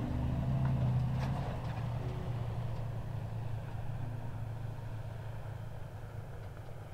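Pickup truck driving on a dirt road: a steady, low engine rumble that slowly fades away, with a faint click about a second in.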